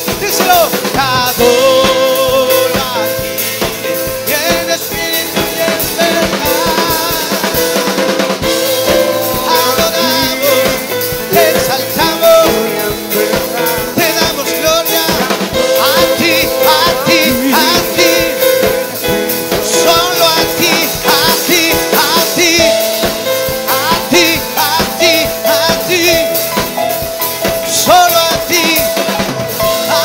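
Live worship band playing with a drum kit and guitars, the drums keeping a steady beat, with voices singing wordlessly over the music.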